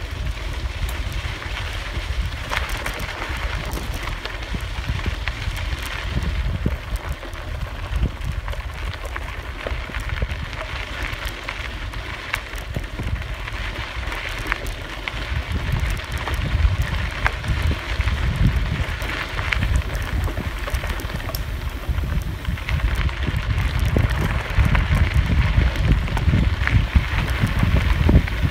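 Bicycle tyres rolling over a dirt and gravel trail, a steady gritty crackle with scattered small clicks, under low wind rumble on the microphone that grows louder near the end.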